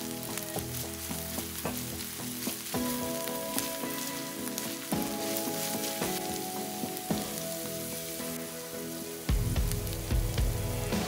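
Ground beef and diced onion sizzling in a nonstick frying pan, with a silicone spatula stirring and scraping through the mince.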